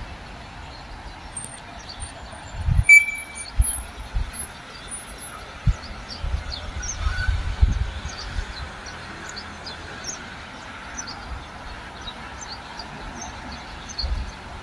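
Outdoor town ambience: a steady hum of distant traffic, with low thumps of wind buffeting the microphone now and then, and faint short chirps of small birds.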